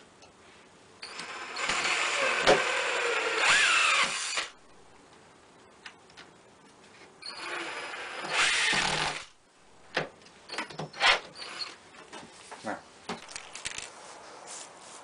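Power drill running in two bursts, about three and a half seconds and then about two seconds long, followed by a scatter of light clicks and knocks.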